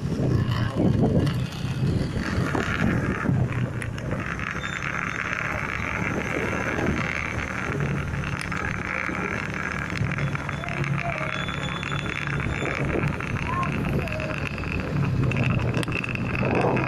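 A vehicle running steadily, a low hum with wind and road noise, with voices now and then.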